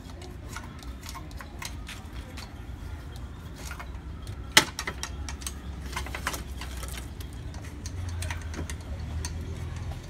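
Epson L3150 inkjet printer's mechanism clicking and ticking irregularly over a low motor hum while it runs its head-cleaning cycle. One sharp click about halfway through is the loudest sound, and the hum grows stronger near the end.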